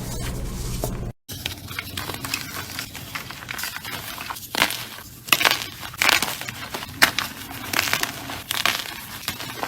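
Gym chalk and slime crunching and crackling, with sharp crunches about once a second. A steady low hum before a brief cut about a second in.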